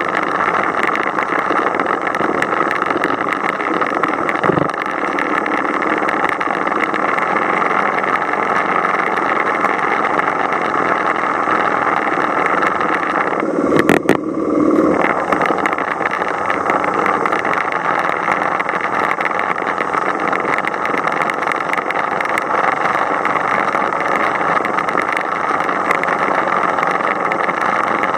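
Motorcycle riding along a road as heard from a camera mounted on it: steady engine and wind rush, with a brief knock and rattle about halfway through.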